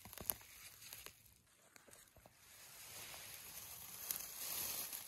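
Dry grass and fern fronds rustling as they are handled and brushed aside. A few crisp crackles come in the first second, then a steady rustling hiss builds and cuts off suddenly at the end.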